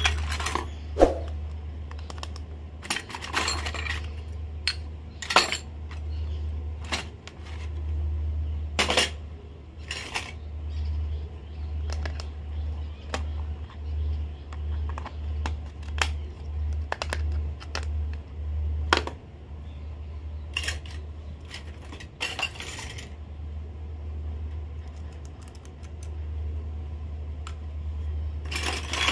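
Miniature stainless-steel and plastic toy kitchen utensils clinking and clattering as they are handled, lidded and set down: many separate sharp clinks and light knocks, over a steady low hum.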